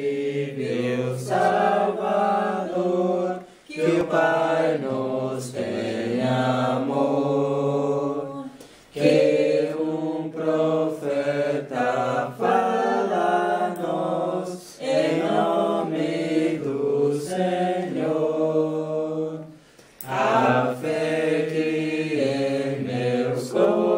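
A small congregation singing a hymn together without accompaniment, in long sustained phrases with short pauses for breath between them.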